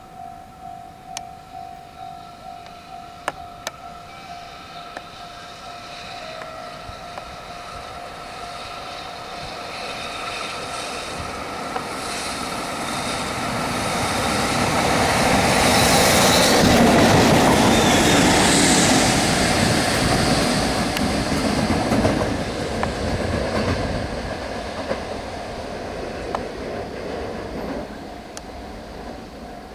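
EF65 electric locomotive towing a dead EH500 electric locomotive past: the rumble and clatter of wheels on rail build up, peak about halfway through as the train passes close, then fade. A level-crossing warning bell rings in steady, even pulses under it.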